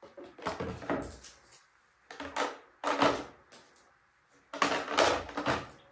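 Plastic clothespins clattering as they are scooped off a hard stone floor and dropped into a plastic container, in several short bursts of clicks with quiet gaps between.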